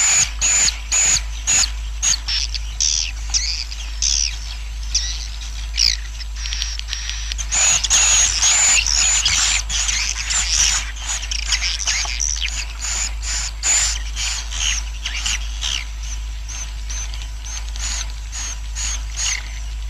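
A colony of swiftlets chirping: a dense, fast run of short, high-pitched chirps, several a second, over a steady low hum. It is a swiftlet roosting-call track of the kind used to lure and settle birds in a swiftlet house.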